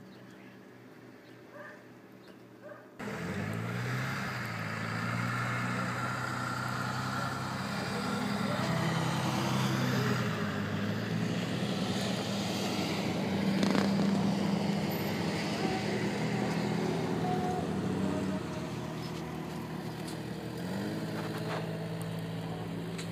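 An engine running close by from about three seconds in, its pitch rising and falling slowly as its speed changes.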